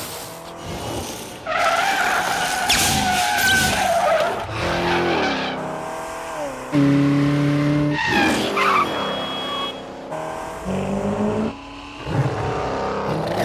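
Car-chase sound mix: tyres squealing and skidding while car engines rev up and down, with a couple of long held tones around the middle.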